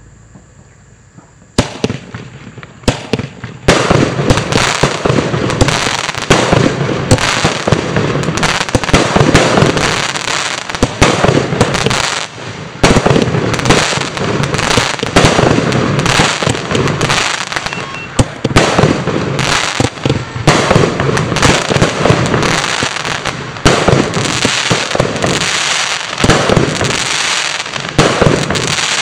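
A Bonfireworks 'Whispering Waves' 16-shot fireworks cake firing. A couple of sharp shots come about a second and a half in, then a dense run of launches and bursts with many sharp pops carries on without a break.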